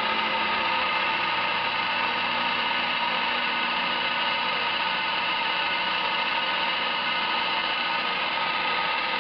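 Emco Compact 5 CNC lathe running with its spindle turning: a steady, even whine made of several fixed tones over a motor hum.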